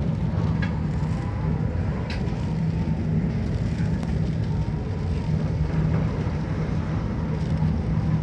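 Steady low drone of a ship's engines and machinery heard on board, with a constant hum and a few faint clicks and knocks.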